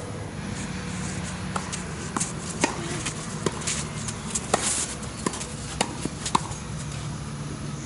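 Tennis rally: a ball struck back and forth by rackets and bouncing on a green clay court, about eight sharp pops spread between about one and a half and six and a half seconds in, over a steady low hum.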